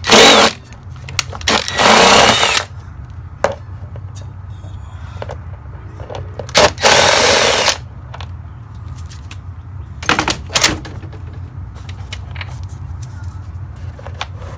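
A power driver spinning out the 10mm bolts holding the engine cover, in four short bursts: two long runs near the start and in the middle, then a shorter one about ten seconds in. A steady low hum runs underneath.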